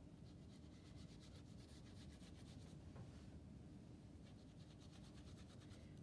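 Foam paint brush rubbing diluted paint into a soaking-wet bandana: faint, quick, repeated scrubbing strokes, with a short pause about three seconds in.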